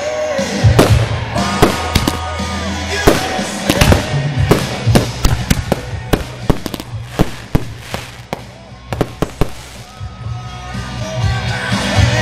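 Aerial fireworks going off in a rapid, irregular series of sharp bangs and crackles, with music playing underneath.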